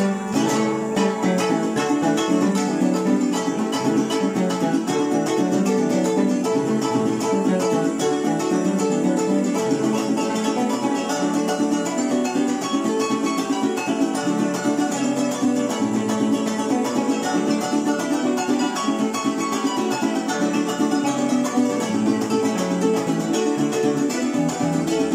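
Music led by plucked string instruments, playing steadily with no voices.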